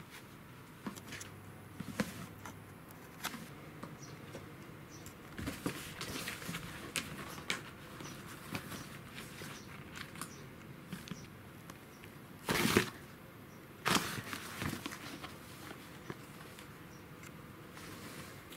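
An empty cardboard tissue box rustling, scraping and tapping as a kitten crawls into it and thrashes around inside, with scattered light clicks and two louder bursts of scraping about halfway through.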